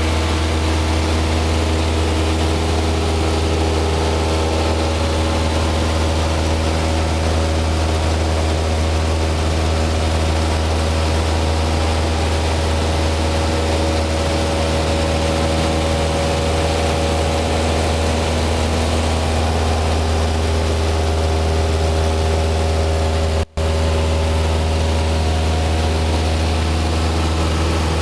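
Light high-wing aircraft's piston engine and propeller heard from inside the cabin, a steady, loud drone in flight. There is a momentary dropout about three-quarters of the way through.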